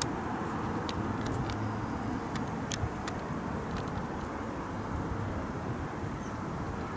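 Steady low rumble of road traffic, with a handful of short sharp clicks in the first four seconds.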